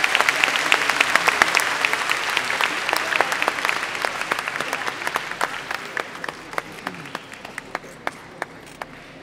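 Audience applause, dying away over several seconds to a few scattered claps near the end.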